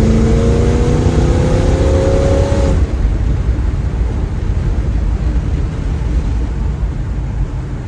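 Small-block Chevy 350 V8 with a new exhaust, heard from inside the cabin, accelerating with a steadily rising pitch; the rising note drops away about three seconds in, leaving a steady low rumble of engine and road noise.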